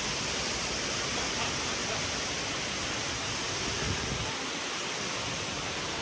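Steady rushing noise of a waterfall, with a brief low bump about four seconds in.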